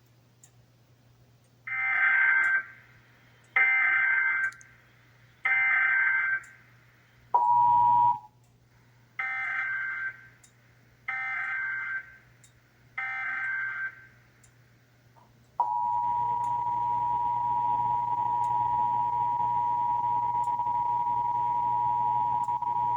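Emergency Alert System broadcast tones for a Required Monthly Test. Three roughly one-second bursts of warbling SAME data header come first, then a brief blip of the two-tone attention signal and three quieter data bursts. From about two-thirds of the way in, the steady two-tone EAS attention signal sounds continuously.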